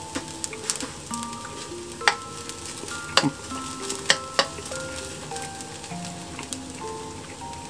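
Food sizzling in a hot frying pan as it is stirred, with a few sharp knocks of the utensil against the pan, the loudest about two, three and four seconds in.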